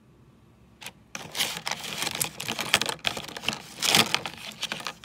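Hands rummaging among plastic diamond-painting tools and packaging in a cardboard box: a click, then a second or so in, a dense run of clattering and crinkling that lasts about four seconds.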